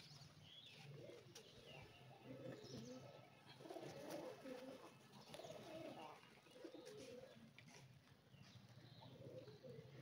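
Feral rock pigeons cooing faintly, a string of low rolling coos repeating every second or so, with faint high chirps from small birds.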